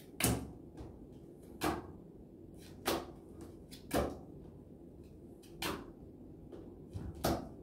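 Playing cards from a Halli Galli–style fruit-card game being flipped face-up and set down on a tabletop in turn, a short sharp tap roughly every second or so.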